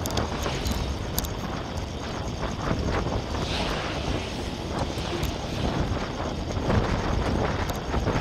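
Wind rumbling on the microphone of a camera riding on a moving bicycle, mixed with the noise of road traffic passing on the adjacent road, and a few light clicks.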